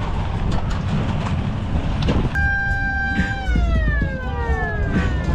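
A siren sounds about two seconds in, holding one steady pitch for under a second and then winding slowly down in pitch, over a steady low rumble.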